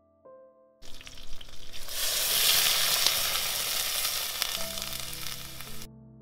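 Food hitting hot oil in a pot over a wood fire: a loud sizzle that starts suddenly about a second in, swells, then fades and stops abruptly near the end.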